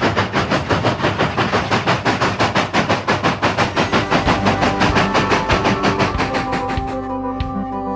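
Narrow-gauge steam locomotive working hard, its exhaust chuffing in a fast, even beat of about six a second. Music fades in near the end.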